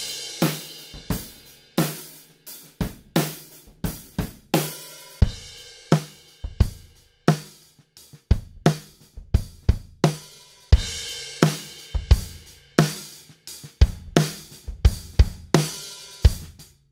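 A drum kit played as a steady beat, with bass drum, snare and cymbal hits. The first part is the kit as heard in the room; partway through it switches to the raw close-miked recorded tracks.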